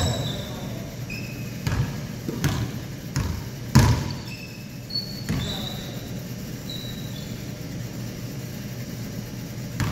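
Basketball bouncing on a hardwood gym floor: a handful of separate bounces in the first half, the loudest about four seconds in, and one more near the end, with short high squeaks of sneakers on the court in between.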